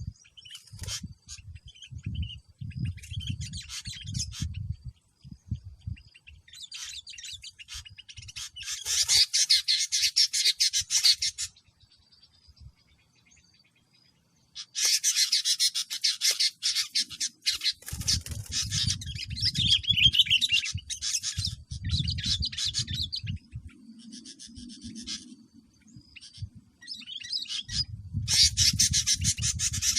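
Bulbuls calling in bursts of fast chattering and chirps, densest about a third of the way in and again through the middle and at the end. Low rumbling comes and goes underneath.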